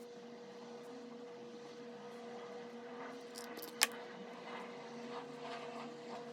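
Soft scratching of a pen writing on paper over a steady low hum, with one sharp click a little past the middle.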